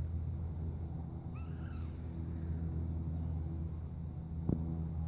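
A steady low hum runs throughout. About a second and a half in comes one short, arching mew from a three-week-old kitten, and a single faint click follows near the end.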